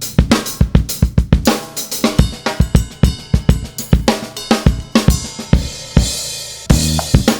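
Background music driven by a drum kit: a steady beat of kick and snare with hi-hat and cymbals. Near the end the low end drops away under a swelling cymbal wash before the full beat comes back in.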